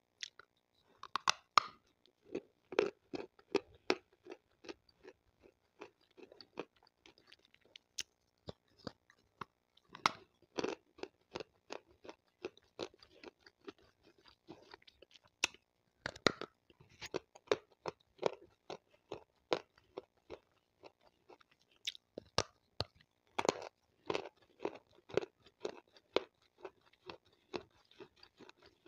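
Close-miked chewing of water-soaked white slate stone: a steady run of short, crisp crunches, a couple a second, with louder bites now and then. The soaked slate is very soft.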